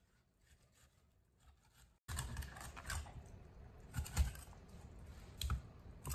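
Near silence, then about two seconds in a cleaver starts slicing fish off the backbone: small clicks and scrapes of the blade against a wooden chopping board, with a few sharper knocks.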